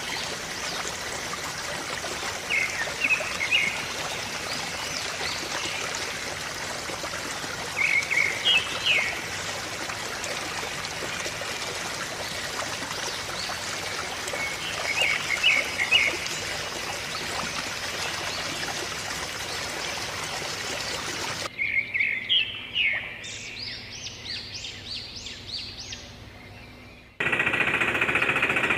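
Steady rush of running water with birds chirping in short bursts about every six seconds. After an abrupt cut the water stops and a bird calls in a quick run of fading notes; near the end a loud, rattling small motor starts suddenly.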